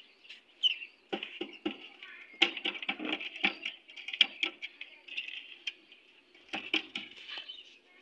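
Lovebirds chattering in a wire cage: a run of high, scratchy chirping mixed with sharp clicks and ticks that come in bursts.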